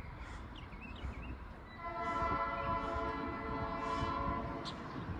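Locomotive air horn of the GP9U sounding one long, steady blast. It starts about two seconds in and lasts about three seconds, over a low rumble.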